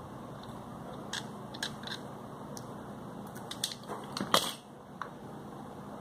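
A utility knife makes light clicks and scrapes on the coil of a wall fan's motor while the motor is handled. A louder rustling scrape comes about four seconds in.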